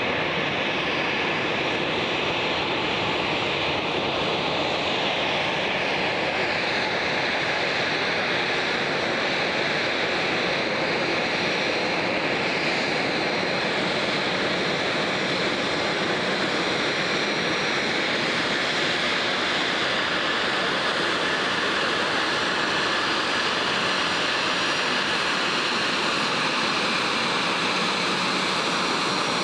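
Twin rear-mounted Rolls-Royce AE 3007 turbofans of an Embraer Legacy business jet running at taxi power: a steady jet whine over a rushing noise.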